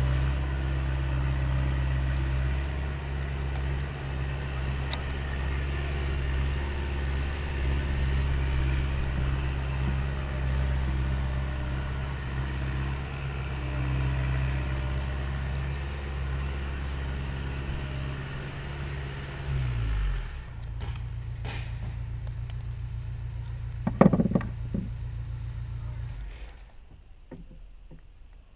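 An engine running with a steady low hum. About twenty seconds in its note shifts, a couple of sharp knocks come a few seconds later, and the engine stops near the end.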